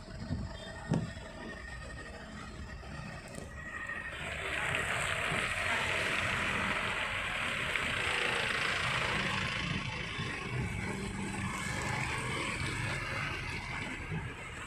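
Slow traffic on a wet, flooded road heard from a car: a steady low engine rumble, with two knocks in the first second. From about four seconds in, a hiss of tyres through standing water swells and then eases off again by about eleven seconds.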